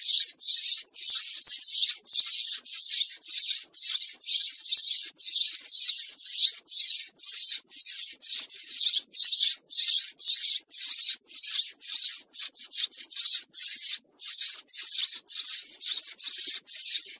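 House sparrows chirping: a steady run of short, high chirps, about two or three a second, with no real pause.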